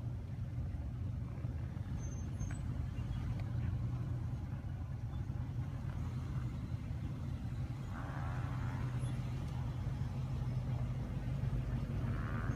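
Nissan Armada's 5.6-litre V8 running at low revs, a steady low rumble, as the SUV crawls slowly over uneven dirt.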